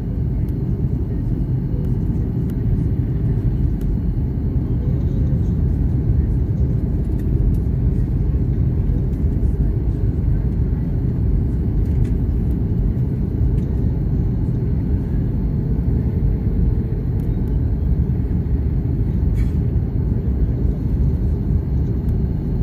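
Steady low rumble of jet engines and rushing air heard inside the cabin of a Boeing 737 airliner descending on approach to land, with a faint high whine running through it.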